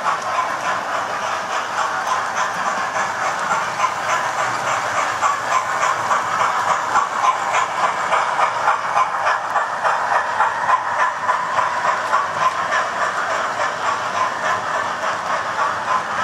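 Several electric model trains running together on a layout: a steady whirr with rapid clicking of wheels on the track. It grows a little louder about midway as two trains pass close.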